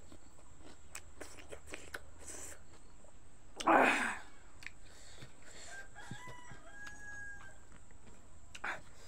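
Rooster crowing: one loud call about four seconds in, then fainter drawn-out crowing tones, with faint clicks of eating by hand in between.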